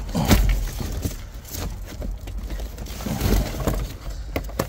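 Notebooks, folders and cardboard being shuffled and knocked about in a dumpster, with scattered sharp knocks and two heavier bumps, one just after the start and one a little past three seconds in.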